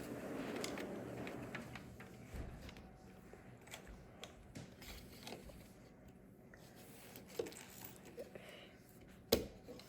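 Faint clicks and rustling of plastic Lego bricks being handled and pressed together, with a sharper click near the end.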